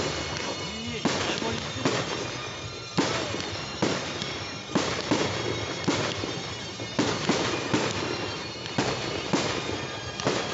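Fireworks display: a rapid run of sharp bangs from shells launching and bursting, about one to two a second, each dying away before the next.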